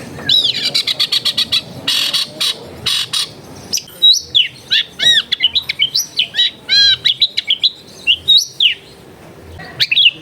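Long-tailed shrike singing. It gives loud, harsh, rapid chattering bursts in the first three seconds, then a varied run of short whistled notes that rise and fall.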